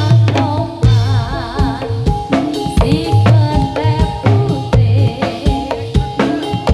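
Live Javanese gedrug accompaniment: ketipung drums beat a steady, busy rhythm under held melodic notes and a wavering, vibrato-laden high melody line.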